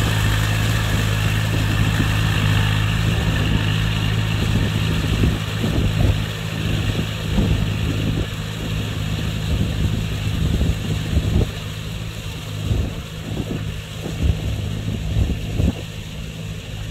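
Kubota tractor engine running steadily under load while it harrows the field, a low hum that slowly grows fainter as the tractor moves away. From about four seconds in, wind gusts buffet the microphone.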